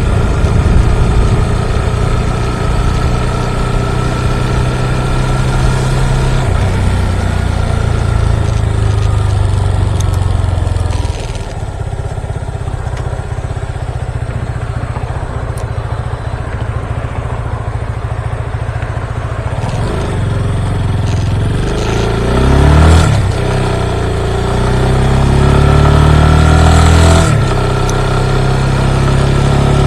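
Motorcycle engine running on the road, its pitch shifting as engine speed changes: it drops about eleven seconds in, climbs with a quick rev a little past twenty seconds, and shifts again near the end.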